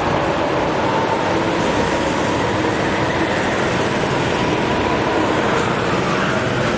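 Several go-kart engines running steadily as the karts lap an indoor track hall, a continuous dense drone with a faint whine.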